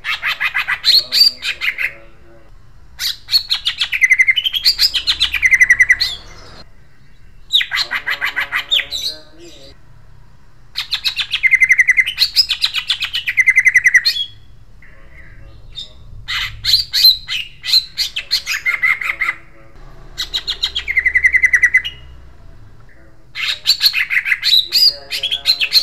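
Male greater green leafbird (cucak ijo) singing a harsh, sharp rolling song. It comes in seven loud phrases of rapid trills and sweeping notes, each two to three seconds long, with short pauses between.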